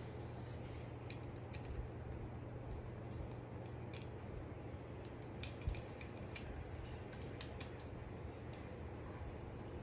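Light metallic clicks and taps of aluminium dog-wheelchair frame parts and hardware being handled and fitted together, coming irregularly, over a steady low hum.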